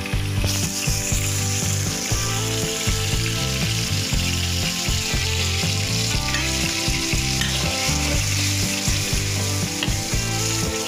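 Ground onion, garlic, ginger and lemongrass paste sizzling in hot oil in a wok. The sizzle gets louder about half a second in, and a spatula stirs it near the end. Under the sizzle is a low tone that changes pitch in steps.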